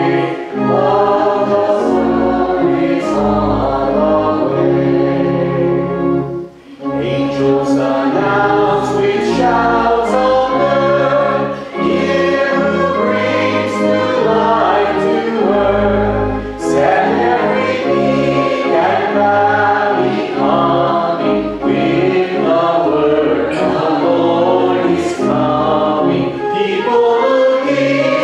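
Church congregation singing a hymn with instrumental accompaniment that holds low bass notes under the voices. There is one short break between phrases about six and a half seconds in.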